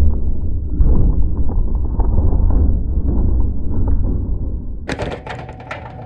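Muffled rumbling and dull knocks of handling as a seized evaporator fan motor is worked out of its sheet-metal fan shroud, then a quick run of sharper clicks and rattles near the end.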